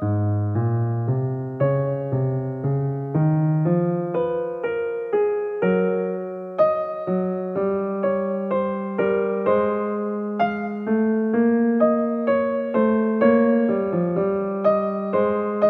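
Background piano music: a slow, even run of single notes over held low chords.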